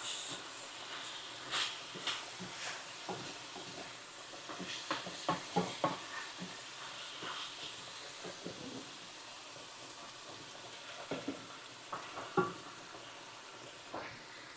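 Diced chicken sizzling in a hot skillet, the sizzle dying down over the first second or so, with scattered scrapes and taps of a wooden spatula stirring the chicken against the pan.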